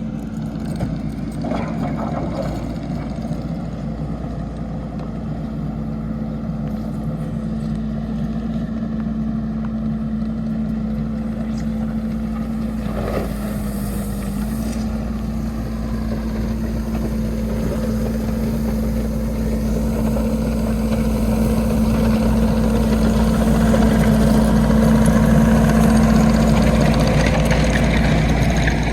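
Diesel engine of heavy earthmoving equipment running steadily under load, its note holding one pitch that rises slightly about halfway through and grows louder toward the end.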